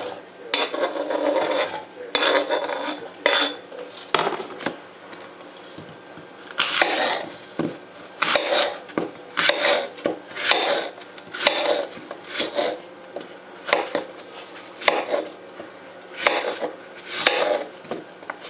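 Kitchen knife slicing and dicing apples on a cutting board: short, sharp knocks of the blade on the board, about one or two a second. In the first two seconds, diced fruit is scraped off the board with the knife into a glass measuring cup.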